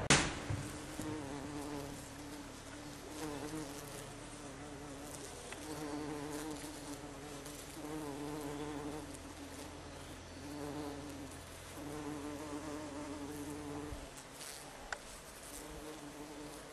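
A buzzing insect, its drone swelling and fading in spells of about a second or two, over a low hum that cuts off near the end; a sharp click at the start and another near the end.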